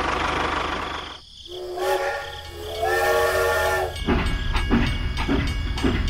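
A low motor hum fades out in the first second, then a steam-train whistle blows two long toots. After that a rhythmic clickety-clack of train wheels on track starts, about three clicks a second, over a low rumble.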